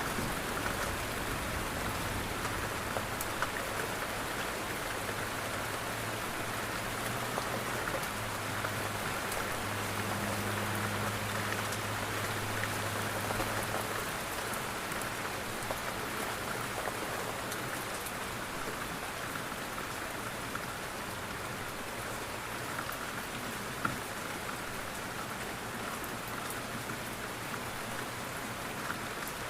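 Steady rain falling on a window, an even wash of noise with scattered sharper drop ticks. A low hum sits underneath and fades out about halfway through.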